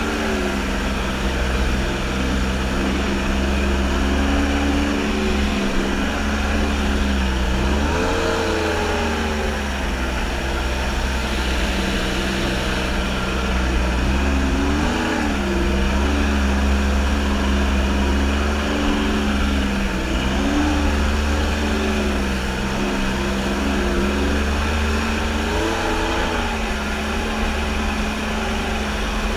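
Kawasaki JS550 stand-up jet ski's two-stroke twin engine running under way. Its revs rise and fall briefly about four times.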